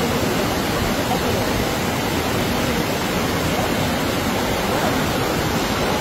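Heavy rain falling together with muddy floodwater rushing over the ground, making a steady, even rushing noise.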